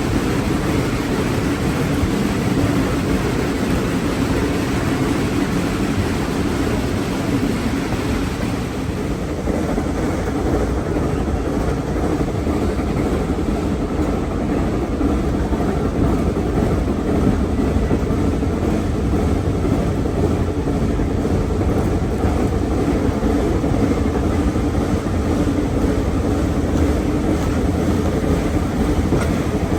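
A train in motion, heard from on board: a steady rumble of wheels on the track, with a high hiss that thins out about nine seconds in.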